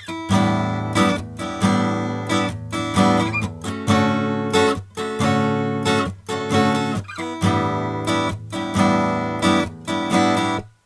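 Acoustic guitar strummed in a steady rhythm, about two strums a second, recorded through a Sound Skulptor MP573 microphone preamp, a coloured design with added harmonic colour and a slowish slew rate. The playing cuts off abruptly near the end.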